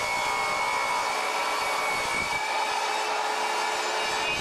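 Table saw running with a steady whine while a glued-up half-inch oak panel is pushed through the blade on a sled to cut it to length.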